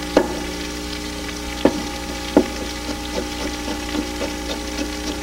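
Chef's knife chopping carrot strips on a wooden cutting board: a few sharp knocks of the blade on the board, then quicker, lighter taps, over a steady hiss and hum.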